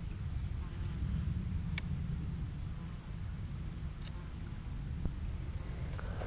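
An insect giving a steady, high-pitched trill that stops about five seconds in, over a steady low rumble, with a few faint clicks.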